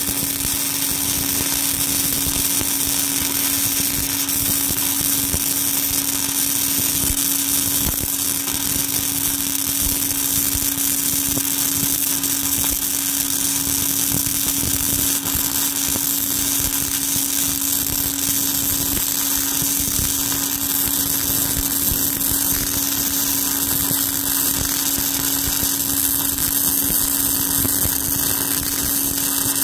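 Self-shielded flux-core arc welding with Lincoln Innershield NR-211 wire, 5/64 in: the arc crackles and sizzles steadily without a break, over a constant low machine hum.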